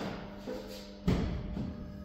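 Background music with a steady low drone and two deep percussive thuds, the louder one about a second in.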